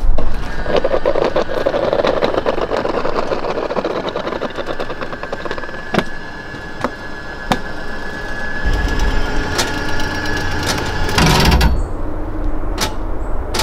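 RV travel trailer's electric slide-out motor running as the slide-out extends: a steady whine with rapid clicking for about ten seconds, ending in a short clunk as it stops.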